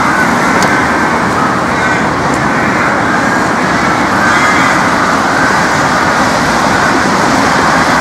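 Steady, loud hum of road traffic noise.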